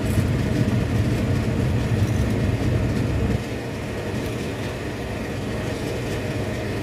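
A steady low rumble from the pot on the gas stove as a steel spoon stirs thin fish-curry gravy in a clay pot, with the rumble dropping a little after about three seconds.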